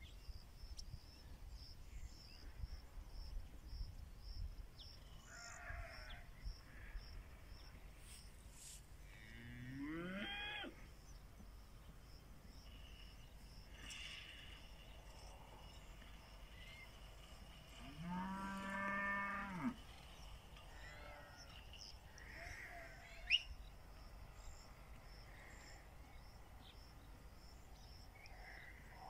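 Pinzgauer cattle mooing twice: a short call rising in pitch about a third of the way in, then a longer, steady low moo about two-thirds through.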